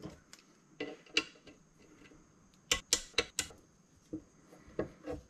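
Metal hand tools and sockets clinking and clattering on a wooden workbench as they are picked up and sorted through while someone looks for a socket, with a quick run of about five sharp clinks near the middle.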